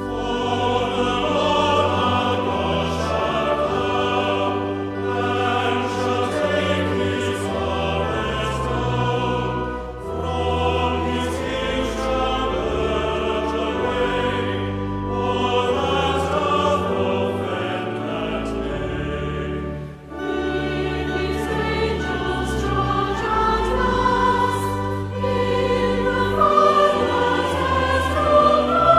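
Choir singing a hymn with instrumental accompaniment, in phrases of about five seconds each.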